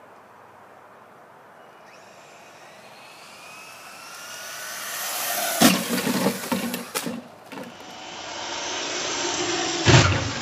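Traxxas Slash RC car's electric motor whining as the car speeds closer, rising in pitch and getting louder, then a sharp hit with clattering about halfway through. The whine builds again and a second loud hit comes near the end.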